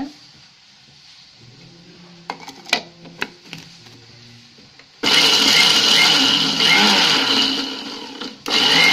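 A few light knocks, then about five seconds in an Indian mixer grinder starts abruptly and runs loudly, wet-grinding horse gram, coconut and water into a smooth chutney paste. It dips briefly just before the end, then runs on.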